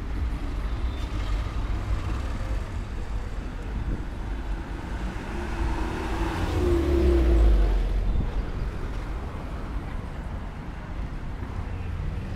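Street traffic rumbling steadily, with a light truck driving past close by and loudest about two-thirds of the way through, its engine note swelling and then fading.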